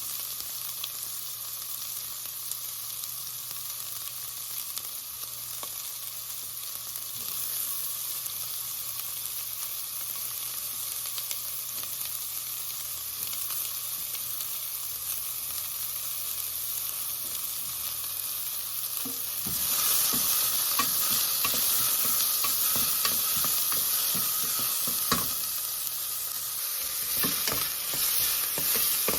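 Garlic, ginger and white onion sizzling in hot olive oil while being stirred. The sizzle grows louder about two-thirds of the way through, with light clicks of the utensil near the end.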